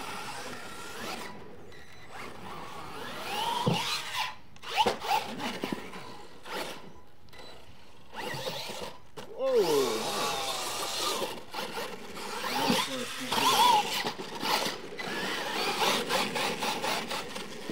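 RC monster truck with a quad-bike body, its motor whining in rising and falling glides as it is throttled on and off around a dirt track.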